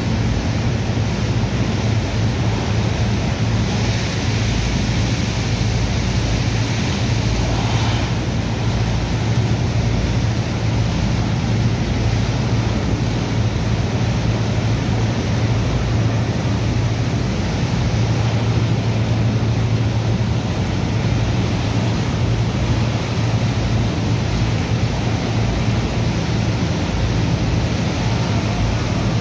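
Steady low drone of slurry-pumping machinery under the rushing and splashing of a water hose jet washing sand into slurry, briefly hissier about four seconds in.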